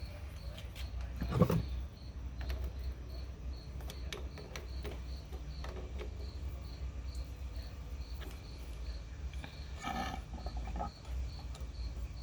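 Knocks and clinks of a faucet's valve stem being tightened back into place with its new rubber washer, with one louder knock about a second and a half in and another near the end. A cricket chirps steadily about twice a second over a low steady hum.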